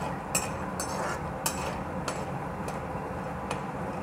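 A perforated steel spoon clinking and scraping against a steel kadhai while almonds are stirred and roasted in ghee, with irregular clicks about two a second over a faint steady sizzle.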